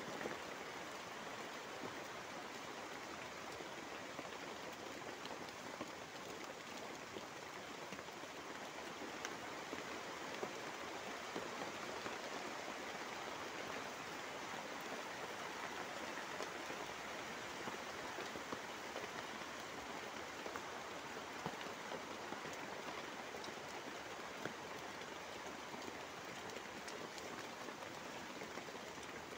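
Steady rain falling on a tarp shelter overhead, an even hiss with scattered sharper drop ticks.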